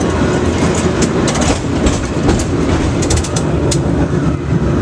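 Cable car running along its street track, heard from on board: a loud steady rumble and rattle, broken by repeated sharp clacks, several of them close together a little after the middle.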